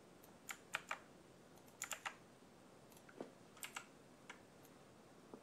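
Computer keyboard keystrokes in a few short clusters of clicks with pauses between them.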